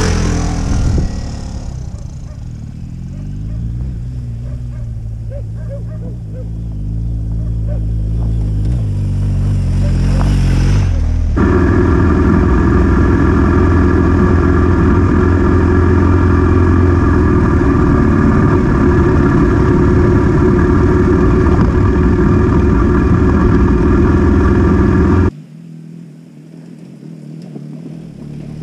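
BMW GS adventure motorcycle engine on dirt: a bike rides close past and its engine note falls away, then about ten seconds in comes loud, steady engine noise heard from on board the moving bike for roughly fourteen seconds. It cuts off suddenly near the end, leaving a quieter engine that slowly grows louder as a bike approaches.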